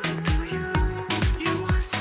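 Music with a steady kick drum, about two beats a second, under sustained synth-like notes.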